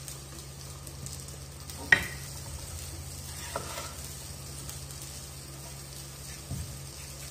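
Potatoes sizzling steadily as they fry in a covered pan. About two seconds in there is a sharp knock, and later a couple of softer taps, from a knife on a wooden cutting board as a bell pepper is cut.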